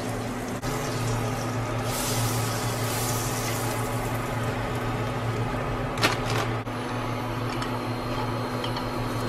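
Butter sizzling in a frying pan as a slice of white bread toasts in it, loudest around two to three seconds in, over a steady low hum. A short sharp tap about six seconds in.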